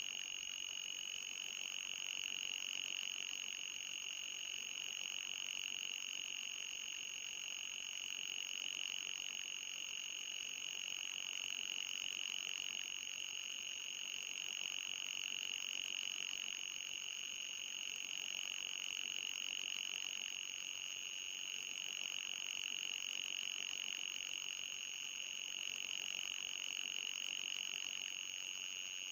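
Electronic anti-mosquito repellent tone: a steady, high-pitched whine with a slight pulsing waver, and a fainter, higher tone above it, running unbroken.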